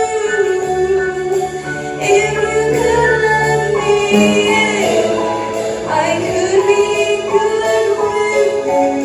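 Music: a sung lead vocal over instrumental backing, the melody sliding between held notes.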